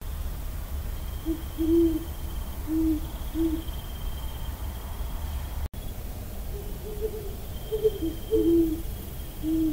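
Great horned owl hooting in two series of several short hoots, the second series starting about two-thirds of the way in. The hoots come at two slightly different pitches.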